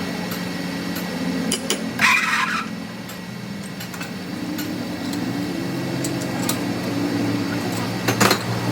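A workshop machine's motor humming steadily, with a short noisy clatter about two seconds in and a sharp strike near the end.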